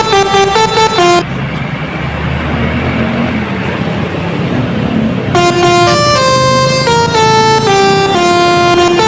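Bus 'telolet' horn, a multi-tone air horn, playing a quick stepped melody that breaks off about a second in. For about four seconds only engine and road noise, then the horn melody starts again and plays on.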